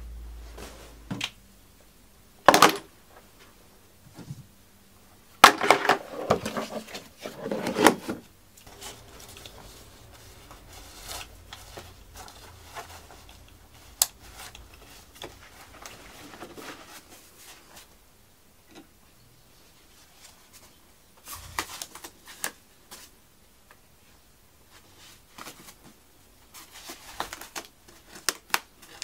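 Outdoor gear being handled and packed by hand: fabric and nylon pouches rustling, with clicks and knocks as items are picked up and set down. A sharp knock comes about two and a half seconds in, and the loudest run of rustling and knocking from about five to eight seconds in.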